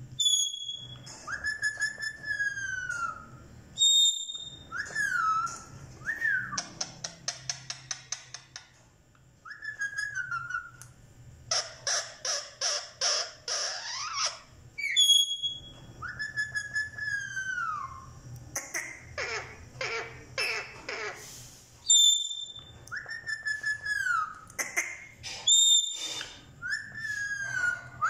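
Indian ringneck parakeet whistling: repeated notes that slide downward, several short high peeps, and stretches of rapid clicking chatter, about ten clicks a second.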